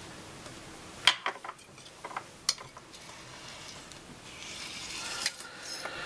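A few sharp clicks and taps in the first half, as a loose steel craft blade and tools are handled on a hard table top. After that comes a soft rubbing as a sheet of polymer clay is handled.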